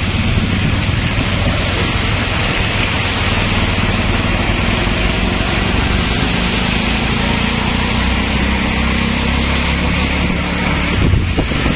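Small engine of a CNG auto-rickshaw running steadily as it rides through traffic on a wet road, with a steady hiss over it.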